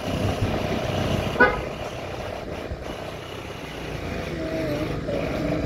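A motorcycle running steadily along a street, with one short horn beep about a second and a half in.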